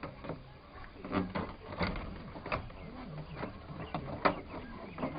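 Scattered clicks and knocks of the interior door panel of a 1985 Ford F-150 pickup being worked loose and handled, the sharpest knock about four seconds in.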